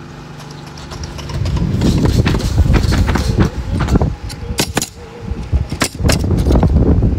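Irregular footsteps and knocks on a roof deck covered in synthetic underlayment, with a low rumble and several sharp clicks partway through.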